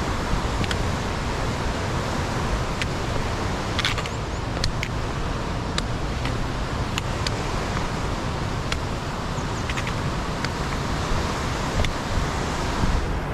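Steady rushing outdoor noise with a low rumble, with light sharp clicks every half second to a second throughout.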